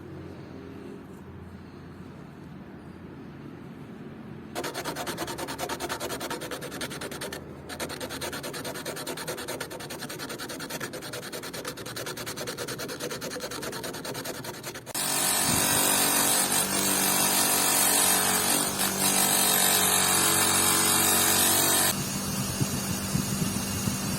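Abrasive rubbing on a part during restoration, a rough continuous scratching that starts about four seconds in. It gets much louder with a steady underlying hum from about fifteen seconds in, then eases back a little near the end.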